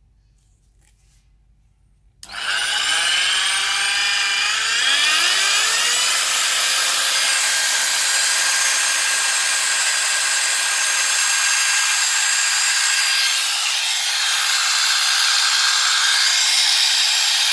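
Variable-speed electric wet polisher switched on about two seconds in, its motor winding up in a rising whine over a few seconds, then running steadily at speed with the backing pad spinning free in the air.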